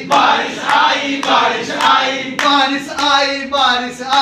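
A group of adults singing a Hindi children's action song together in a chant-like unison, with an even beat about twice a second.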